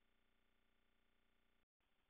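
Near silence: only a very faint, steady electronic noise floor, which cuts out completely for a moment near the end.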